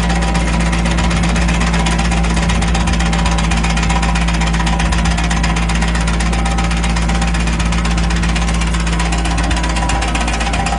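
Compact tractor engine running steadily with a constant low drone as it pulls a green onion digger through the soil.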